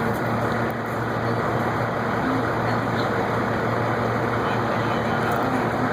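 A steady mechanical rumble with a constant low hum and no sudden bangs, like a large engine running.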